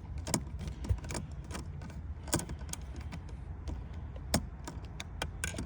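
Irregular small clicks and taps of hand tools and wire being worked into an amplifier's power terminals, over a low steady hum.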